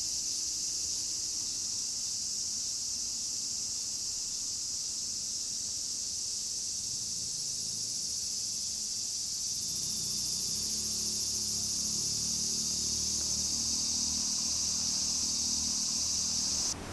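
Insects droning steadily in one even, high-pitched band, with a low rumble that comes in about ten seconds in.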